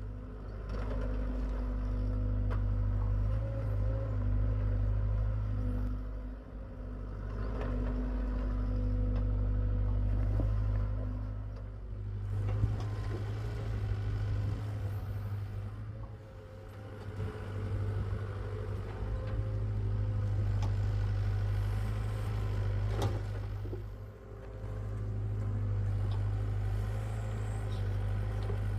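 Hitachi EX75UR excavator's diesel engine running steadily, its sound swelling and easing every few seconds as the hydraulics take up load through the digging cycles, with a few short knocks.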